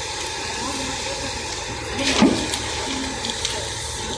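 Concrete pump running with a steady mechanical noise, with one sharp knock about halfway through.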